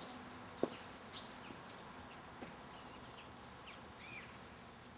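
Outdoor background with small birds chirping here and there, and a single sharp knock about half a second in.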